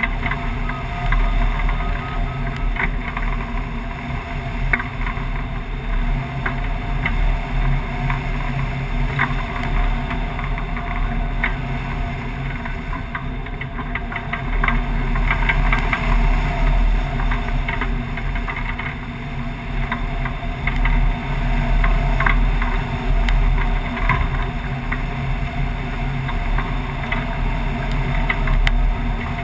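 Wind rushing over a wing-mounted camera on a hang glider in gliding flight: a steady low rumble of airflow that gusts louder about halfway through.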